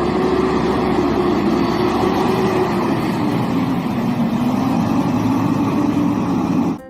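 Garbage truck engine running steadily, its hum sinking a little in pitch about halfway through, then cutting off abruptly near the end.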